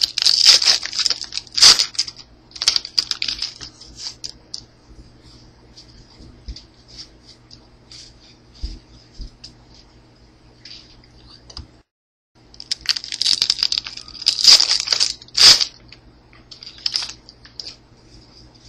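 A trading card pack's wrapper torn open and crinkled, then quieter clicks and rustles of cards being handled and sorted. About thirteen seconds in, another loud stretch of crinkling and tearing.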